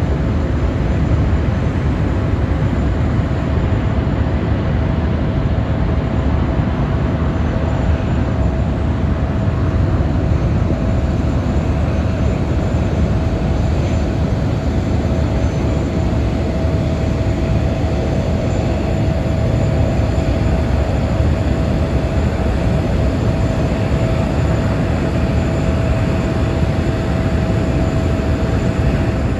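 Airbus A350-1000's Rolls-Royce Trent XWB jet engines during a low flypast: a loud, steady jet rumble with a constant whine running through it.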